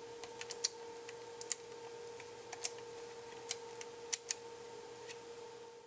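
Short, irregular plastic clicks and ticks as fingers handle and turn the frequency dial of a benchtop RC oscillator signal generator, over a faint steady high hum.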